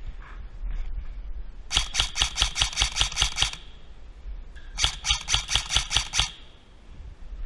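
Airsoft rifle firing two strings of rapid shots, about six or seven a second. The first string has about a dozen shots and the second, a little over a second later, about ten.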